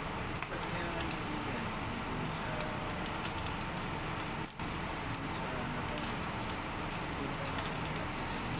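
Rib eye steak frying in hot oil in a nonstick pan: a steady sizzling hiss with scattered crackling pops of spattering fat, broken by a momentary gap about halfway through.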